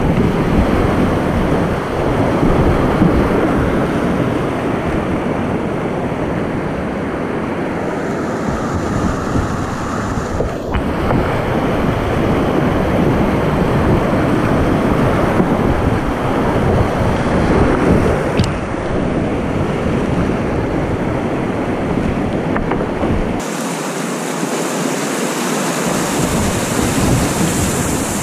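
Loud rushing of whitewater rapids close around a kayak running down a rocky river, with water and wind buffeting the microphone.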